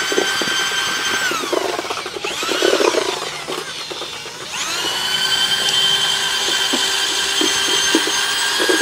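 Corded drill with a paddle mixer churning lime mortar in a bucket. The motor whines steadily, slows down about a second and a half in, then speeds back up about four and a half seconds in and runs steadily again.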